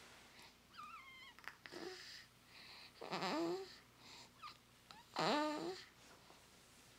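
Newborn baby making grunting, squeaky noises while waking up: a short high squeak about a second in, then two louder strained, whiny grunts about three and five seconds in, with breathy snuffling between.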